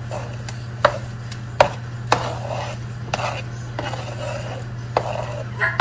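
A black plastic ladle knocking and scraping on a plastic cutting board as sliced smoked sausage is pushed into a pot of simmering sauce: about six or seven sharp taps spread over the few seconds, some followed by a short scrape or soft splat.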